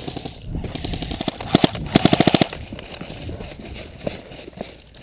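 Airsoft gun firing a short rapid burst of about eight shots, preceded by a couple of single shots, about two seconds in.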